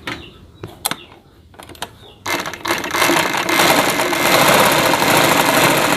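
A few light clicks, then a black domestic sewing machine starts about two seconds in and runs fast and steadily, stitching a test seam after its upper thread tension has been tightened to stop the thread looping under the cloth.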